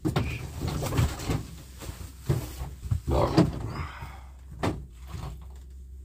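Split firewood being handled and stacked: sticks of wood knocking together in a string of irregular clunks, with some scraping, most of them in the first half.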